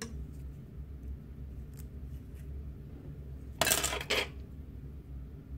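Metal hair clip being handled and pushed into hair at the hairline: faint clicks, then a short, loud scraping rustle about two-thirds of the way in, over a steady low hum.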